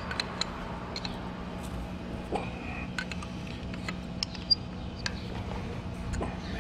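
Scattered light metallic clicks of a combination wrench on a nut welded onto a broken exhaust manifold bolt, as the bolt is turned out of an LS cylinder head, over a steady low hum.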